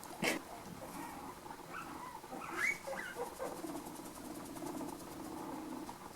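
Guinea pig vocalising softly: a few short rising squeaks, then a low, steady buzzing purr from about halfway through.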